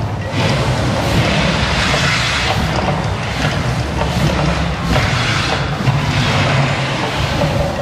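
The Mirage volcano show erupting: a loud, steady rumbling roar of its gas fire effects under the show's amplified soundtrack, swelling several times as fireballs burst.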